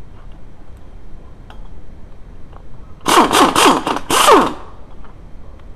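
Pneumatic impact wrench hammering on a bolt at the steering knuckle: four quick bursts about three seconds in, then a slightly longer one, the pitch falling in each burst.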